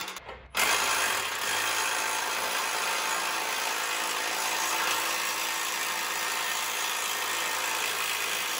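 Cordless impact wrench running steadily as it spins the nut along the lifter-wheel strut's tensioning bolt, drawing the strut up. It starts about half a second in.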